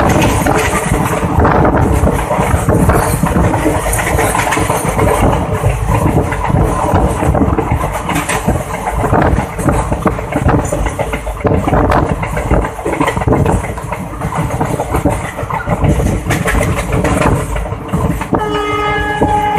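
Passenger train coach rolling along at speed, heard from an open window: wheels knocking and clattering over the track with wind buffeting. About a second before the end, the hauling WDG4 diesel locomotive's horn starts sounding.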